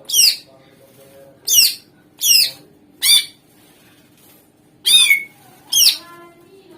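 Greater green leafbird (cucak ijo) in full song, giving six short, sharp calls. Each call sweeps quickly down from a very high pitch, spaced irregularly, about one every second.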